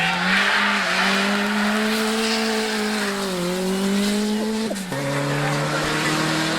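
Rally car engine running hard at high revs. Its pitch wavers, then drops sharply nearly five seconds in and climbs slowly again.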